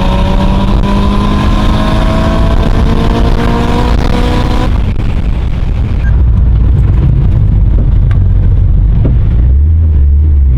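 Mitsubishi Lancer Evolution VIII engine accelerating, its pitch rising steadily for about five seconds. It then cuts off abruptly to a low, steady driving rumble with road and wind noise.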